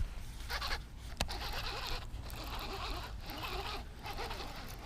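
Fishing reel being cranked, a dry zipper-like whirr coming in stretches of about a second each, with a sharp click about a second in.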